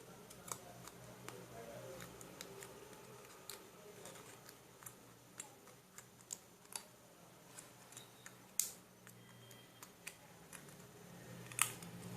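Scattered light clicks and taps from hands working small craft parts, irregular and faint, over a steady low hum.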